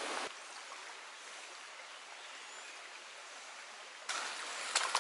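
Shallow stream running over stones, a steady water hiss that grows louder about four seconds in, with a couple of sharp clicks near the end.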